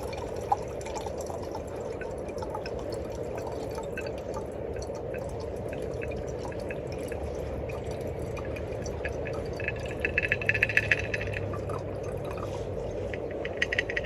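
Cocktail being strained from a shaker into a copper mug: liquid pouring and dripping steadily, with a short spell of rapid rattling about ten seconds in and again near the end.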